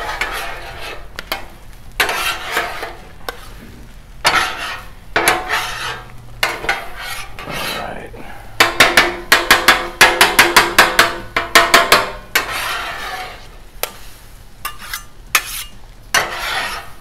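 Two metal spatulas scraping and chopping scrambled eggs and chorizo on the steel cooktop of a Blackstone griddle. Steel scrapes across the plate alternate with clacks, and a fast run of sharp clacks from the chopping comes a little past the middle.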